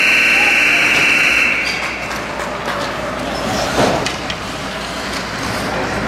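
Referee's whistle blown in one long, loud, steady blast that stops play, ending about a second and a half in, over the general noise of the rink.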